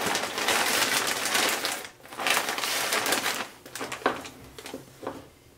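Clear plastic parts bag crinkling and rustling as a chassis is pulled out of it, in two bouts, the first about two seconds long and the second about one. A few light clicks follow near the end.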